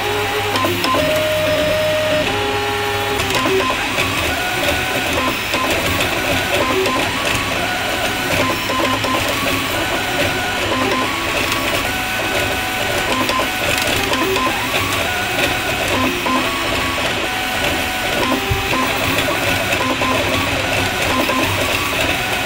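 Atomic U300 3D printer at work: its stepper motors whir in short tones that jump from pitch to pitch as the print head changes direction, over the steady hiss of its cooling fans.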